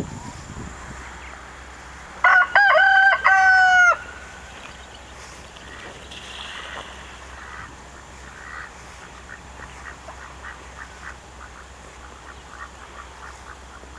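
A rooster crows once about two seconds in: a loud cock-a-doodle-doo lasting under two seconds, in several pitched segments. From about eight seconds on, faint runs of short bird calls come several to a second.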